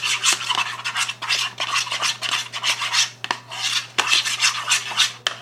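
A spoon stirring thick white-glue slime in a bowl: quick, repeated scraping and squelching strokes, with a few sharp clicks of the spoon against the bowl.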